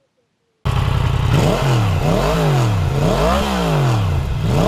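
Motorcycle engine revving in repeated blips, its pitch climbing and falling back about once a second. It cuts in suddenly about half a second in.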